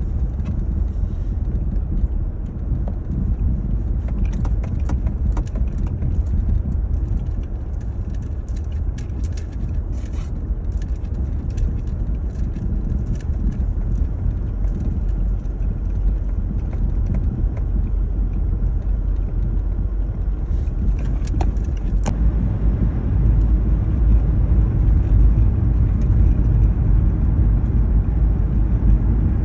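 Inside a car driving on snow-covered roads: a steady low rumble of tyres and engine, growing louder for the last few seconds, with scattered light ticks and clicks.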